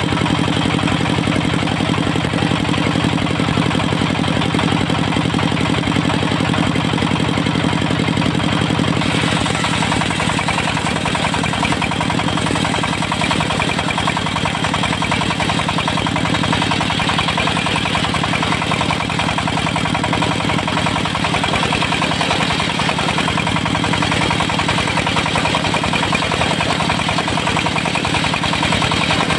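Diesel engine of a mobile circular-saw rig running steadily. About nine seconds in, its note drops slightly and a brighter hiss rises over it, then both carry on steadily.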